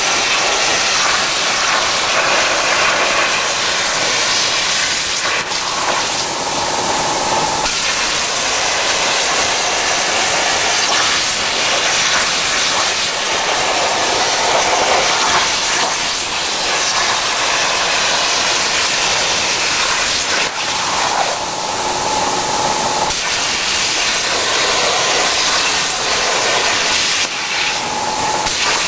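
Plasma torch of a portable CNC cutting machine cutting steel plate: a steady, loud hiss of the cutting arc. A faint whine joins it a few times.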